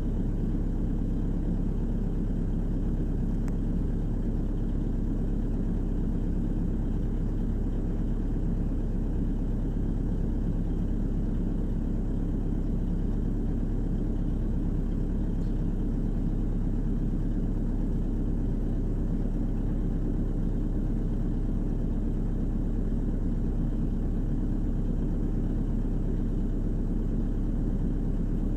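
Volvo EWR150E wheeled excavator's diesel engine running steadily, heard from inside the cab as a low, even hum while the machine works.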